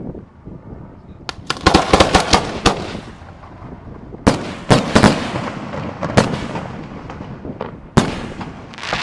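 Aerial fireworks shells bursting overhead. A quick string of sharp bangs comes about a second and a half in, then single loud bangs about half a second to a second apart, each followed by a rolling echo.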